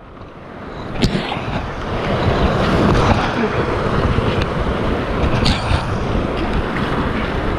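Rushing whitewater and spray splashing against an inflatable kayak as it runs a rapid, growing louder over the first couple of seconds and then holding steady. A sharp knock about a second in.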